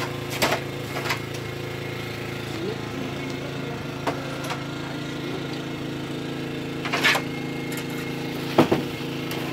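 An engine running steadily at a constant speed, with a few sharp knocks and clicks over it; the loudest knocks come near the end.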